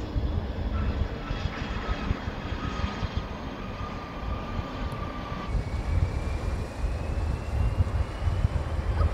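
Airbus A330-300 airliner's jet engines arriving to land, running with a steady whine over low rumble and wind on the microphone. About halfway through, a higher whine takes over and slowly rises in pitch.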